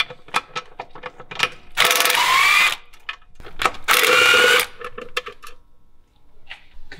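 Ratchet wrench clicking as the transmission filter bolts are undone, then two bursts of about a second each from a power tool, each with a rising whine, followed by a few scattered clicks.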